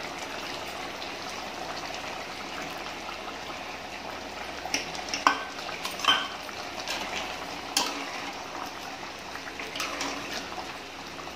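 Chicken gravy simmering in an aluminium pot, a steady bubbling hiss as the cornflour-thickened sauce cooks. A few sharp clinks of a steel slotted spoon against the pot come around the middle, and stirring starts near the end.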